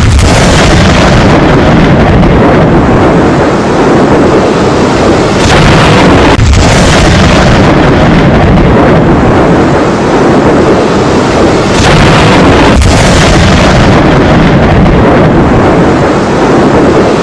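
Heavy rain pouring down, a very loud, steady dense hiss that overloads the recording.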